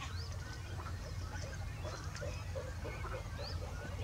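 Wetland ambience with a steady low rumble. Scattered chirps and short whistles from small birds run through it, and a quick run of short, low, repeated calls comes in the second half.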